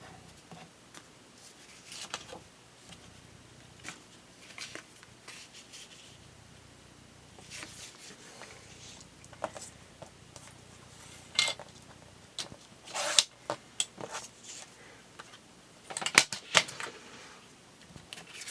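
Scrapbook paper and pieces being handled and worked on a craft table: irregular rustles, slides and small taps, with louder ones in the second half.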